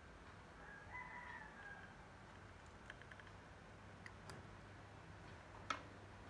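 Near silence: faint room tone with a distant call about a second in, lasting about a second and falling at its end. A few light clicks follow, the sharpest one near the end.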